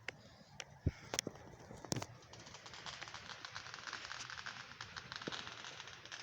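Distant fireworks: a few sharp pops in the first two seconds, then a steady crackling of many small bursts.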